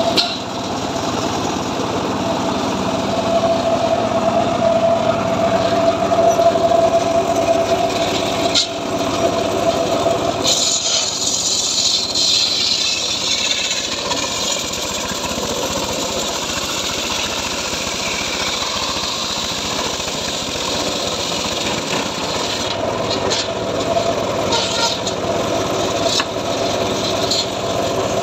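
Homemade circular sawmill running, its large blade ripping lengthwise through a log. The run is steady and loud, and about ten seconds in the cutting turns brighter and hissier.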